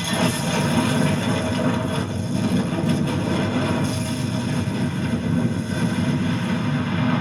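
Film soundtrack of an action scene with no dialogue, a dense, steady mechanical rumble heavy in the low end, played through a television's built-in speakers.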